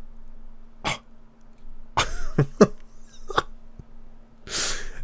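A man's throat clearing and short coughs, several separate bursts a second or so apart, the loudest and breathiest near the end.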